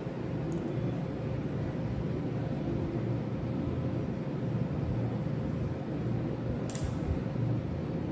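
Steady low machine hum with a faint constant tone, like a fan running, and a single short click near the end.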